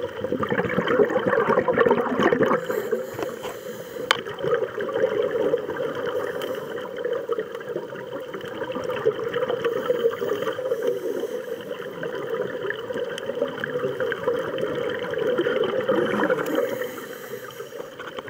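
Underwater scuba audio: divers' exhaled breath leaving their regulators as streams of bubbles, a continuous crackling, gurgling rush that swells and fades.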